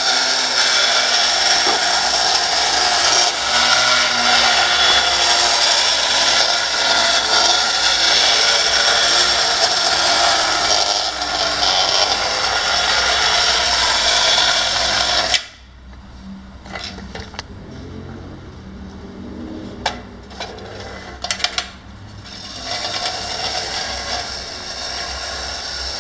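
Antique tin wind-up toy street sweeper's clockwork spring motor running with a loud, steady mechanical whir, which cuts off suddenly about halfway through. After that, only a few faint clicks and knocks.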